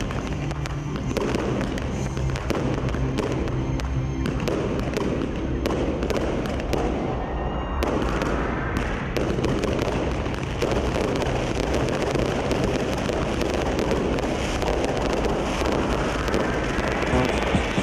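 Aerial fireworks going off in a dense, continuous barrage of bangs and crackling bursts.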